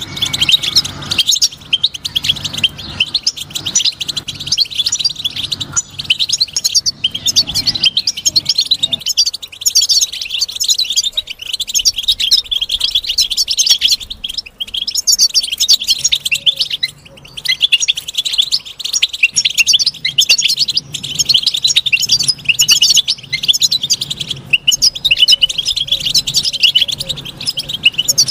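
European goldfinch song: rapid, nearly unbroken twittering and chirping, with a couple of brief pauses a little past the middle.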